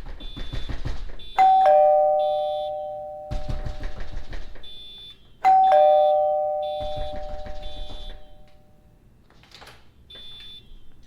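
Two-tone ding-dong doorbell chime rung twice, about four seconds apart; these are the loudest sounds, each falling from a higher note to a lower one and fading. Bouts of rapid knocking on the door come between the rings, and a car alarm beeps faintly in the background.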